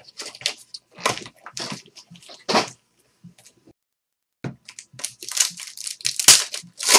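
Wrapper of a trading-card pack crinkling and tearing as it is handled and ripped open, in a run of short crackling rustles, with a brief pause about two-thirds of the way through before a denser burst of crinkling.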